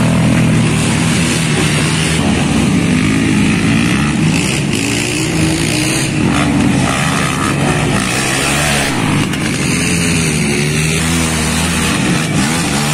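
Racing sport quad ATV engines revving hard, the pitch climbing and dropping again and again as the throttle opens and closes.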